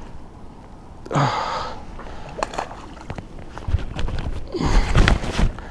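Water splashing as a hooked bass thrashes at the surface while it is reeled in close to the bank, in uneven bursts that are loudest near the end.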